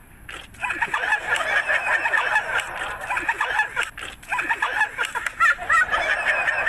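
A group of people bursting into loud, shrieking laughter about half a second in, going on with a brief dip midway.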